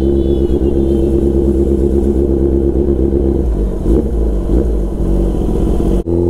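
Kawasaki Ninja sportbike's engine running steadily under way, with its note changing about three and a half seconds in.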